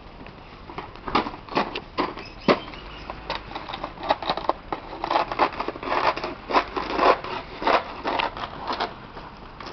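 A knife stabbing and levering into the hard shell of a dried gourd, a run of sharp, irregular cracks and scrapes starting about a second in.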